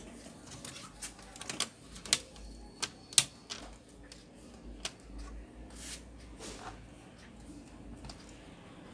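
Irregular sharp clicks and taps of plastic and metal parts as hands work the opened chassis and motherboard of a Toshiba Satellite C640 laptop. The clicks come thickest through the first six seconds, the sharpest about three seconds in, and grow sparse toward the end.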